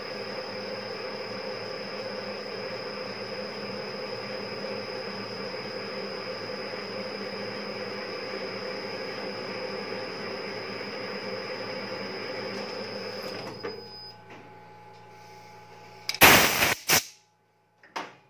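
Metal lathe running steadily with a constant high whine and hum as a thread is cut on a steel rod with a single-point threading insert; the spindle stops about three-quarters of the way through. Then comes a short, loud clatter of metal knocks and a single click near the end.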